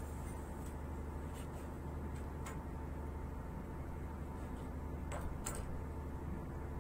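Steady low mechanical hum, like a running engine, with a few sharp clicks, the last two close together.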